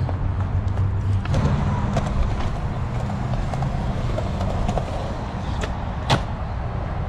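Skateboard wheels rolling over concrete with a steady low rumble and scattered small clicks, then one sharp, loud clack of the board about six seconds in as the skater hits the handrail.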